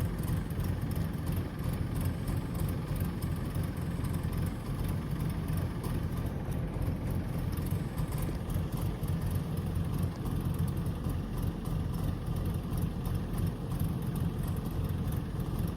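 A vehicle running steadily, heard as a continuous low rumble.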